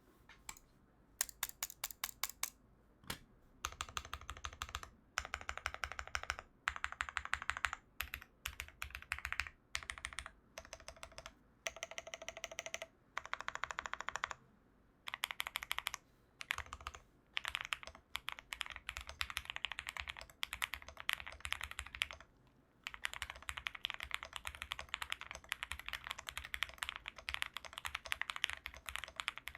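Typing on an Owlab Spring mechanical keyboard with Cotton Candy switches, clone GMK keycaps and a POM plate: rapid keystroke clacks in bursts with short pauses between them, then a longer unbroken run of typing in the last third.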